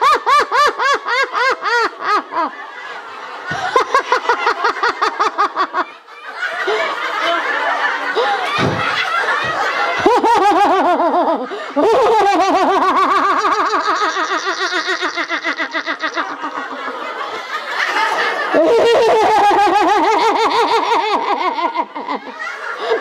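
A group of people laughing loudly together in a laughter-yoga exercise: deliberate, hearty laughter from several overlapping voices in quick 'ha-ha-ha' pulses, easing briefly about six seconds in before swelling again.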